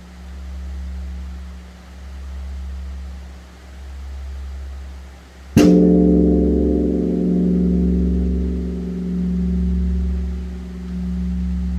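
Large Korean bronze temple bell (beomjong) rung for the dawn service. Its low hum from the previous stroke throbs slowly, swelling about every two seconds. About five and a half seconds in it is struck once with a wooden beam and rings out in a deep, wavering, many-toned hum.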